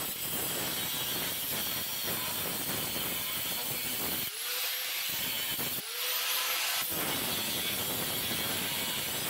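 Angle grinder with a cutting wheel cutting through 1/8-inch steel flat bar, a steady grinding noise. Twice, at about four and six seconds in, the cutting noise drops away for a moment and leaves the grinder motor's whine before the wheel bites into the steel again.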